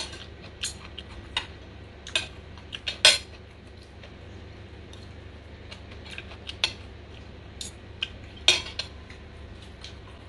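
Metal spoon and fork clinking and scraping against a plate in scattered, irregular clicks, loudest about three seconds in.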